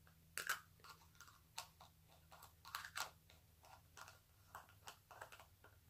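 Near silence broken by faint, irregular small clicks, a couple of dozen over a few seconds.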